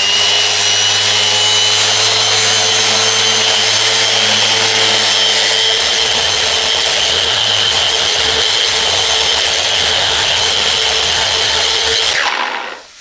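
Electric power sander running with sandpaper against a cast iron machine table, sanding off grime and rust, with a steady high whine over a lower hum that shifts about halfway through. The sander winds down near the end.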